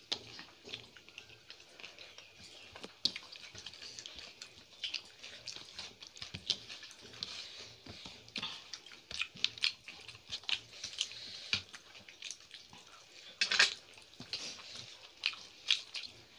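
Eating by hand: wet, smacking chewing and fingers working rice and curry on plates, heard as many short, irregular clicks and smacks, with a louder cluster about three-quarters of the way through.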